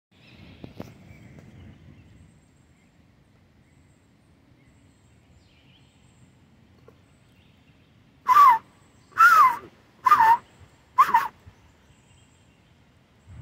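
Red-shouldered hawk calling four times, loud short calls about a second apart, each sliding down in pitch at the end.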